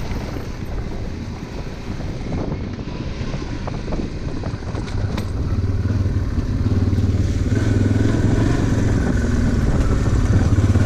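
Honda Transalp 600's V-twin engine running as the motorcycle rides along, its note getting louder and steadier from about halfway through. There is a brief knock near the middle.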